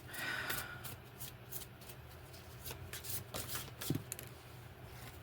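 Tarot cards being shuffled and handled by hand: a run of quick card flicks and rustles that thins out after about four seconds, with one sharper card snap just before.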